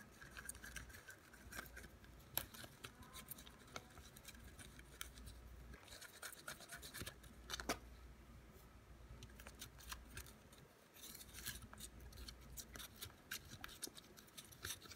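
Plastic spoon stirring a slime mixture of glue, baking soda and contact-lens solution in a clear plastic cup: faint, irregular scraping and clicking of the spoon against the cup.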